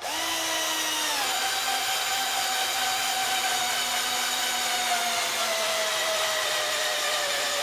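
BR Motors 12 V cordless drill/driver boring into wood with a 3/4-inch spade bit: a steady motor whine that drops a little after about a second, then sinks slowly in pitch as the motor is loaded down.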